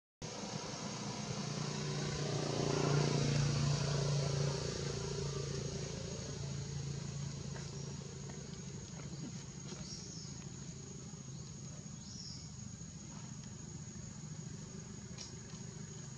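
A motor vehicle's engine passing by, growing louder to about three seconds in and then slowly fading away. Two faint short high chirps come later.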